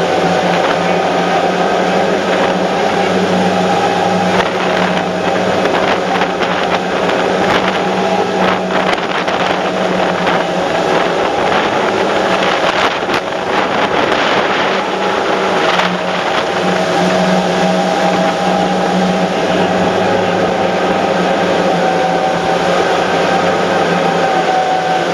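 The engines of a 900 hp rigid inflatable boat running steadily at speed, a constant drone over the rush of churning wake water.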